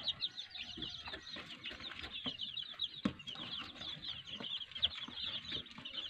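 A brood of about 15-day-old local chicks peeping constantly: a dense stream of short, high, falling peeps from many birds at once, with a few soft taps among them.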